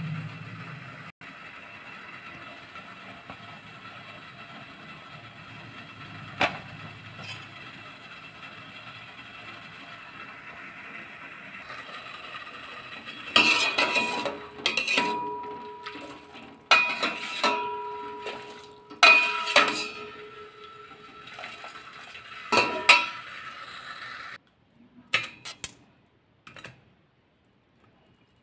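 A steady low hiss at first. Then, about halfway through, a steel ladle knocks and scrapes against a stainless steel pan while stirring syrup: a series of loud clanks, each leaving the pan ringing. It ends with a few light clicks of metal tongs.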